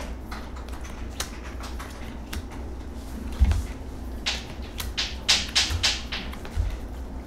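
Tarot cards being handled: scattered light clicks and a run of short swishes about halfway through as cards are slid off the deck and laid onto the table, with a few soft thumps.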